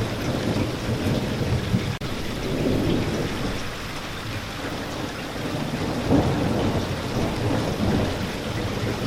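Steady rain with a low rumble of thunder underneath, swelling a few times.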